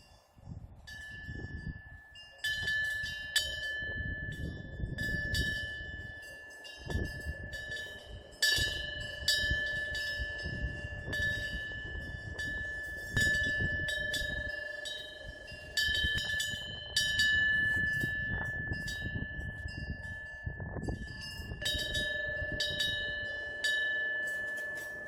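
Korean temple eave wind bell (pungyeong), a small bronze bell, struck over and over at uneven intervals by its wind-swung clapper. Each strike rings on in one clear, high tone. Underneath runs a low, gusty rumble.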